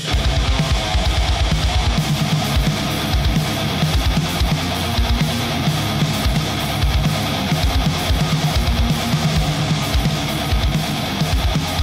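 Intro theme music: rock with electric guitar and a drum kit keeping a steady, driving beat.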